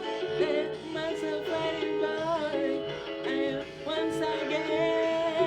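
Instrumental riddim backing track playing: a gliding melody line over a repeating bass line.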